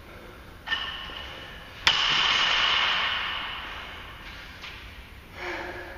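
Loaded barbell with black bumper plates dropped from overhead onto a rubber floor mat: a lighter metallic clank under a second in, then a sharp slam about two seconds in that rings and echoes through the large empty warehouse, fading over a couple of seconds.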